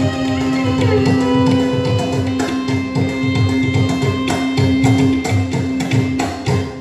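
Carnatic devotional music: mridangam and ghatam beating a fast, dense rhythm under one long held note, with violin, stopping just before the end.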